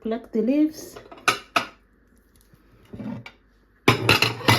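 Kitchen dishes and utensils knocking and clattering: two sharp knocks about a second in, then a quick run of clatter near the end.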